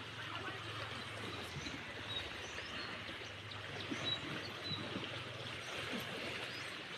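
Shoreline wash: small waves lapping against a concrete sea wall beside a rubble beach, a steady watery hiss. A low hum is there at first and fades after a second or so.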